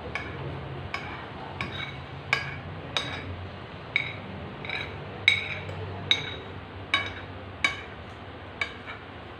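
Metal spoons and forks clinking and scraping against plates during a meal, a dozen or so sharp clinks at irregular intervals, each with a short ring.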